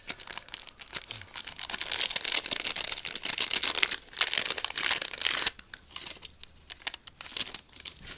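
Packaging being crinkled and torn open by hand as a small wrapped package is unwrapped. The crinkling is dense and loud through the middle, then drops to a few lighter rustles and clicks about two-thirds of the way through.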